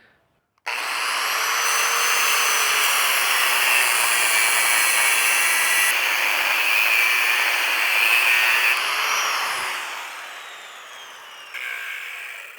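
Power tool's cutoff wheel spinning up and cutting through rusty steel angle iron, a loud steady high-pitched grinding noise. About nine seconds in the cut ends and the wheel's whine falls as it winds down.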